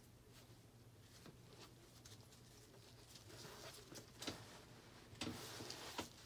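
Faint rustling and scratching of sinew being wrapped and pulled tight around a bunched T-shirt by gloved hands, with a few louder scrapes in the second half.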